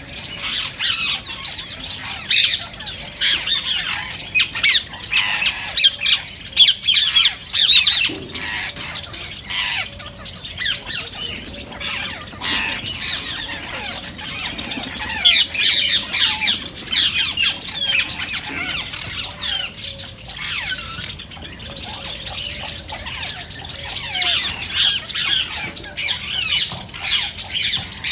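Indian ringneck parakeets (rose-ringed parakeets) squawking: a dense, unbroken run of shrill, short calls from several birds, overlapping one another.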